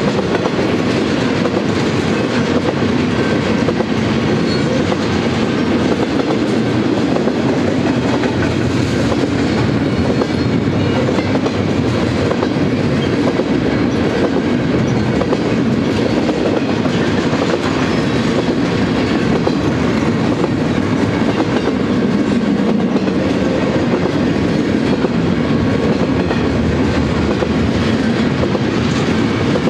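Double-stack intermodal container train rolling steadily past: a continuous rumble and clatter of freight-car wheels on the rails.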